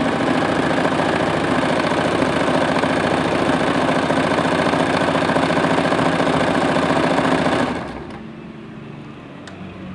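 Sewing machine running at a steady fast pace, stitching the fabric in a rapid even rhythm, then stopping abruptly about eight seconds in.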